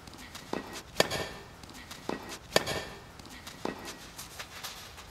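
A series of sharp knocks, unevenly spaced about a second apart, over a faint steady hiss.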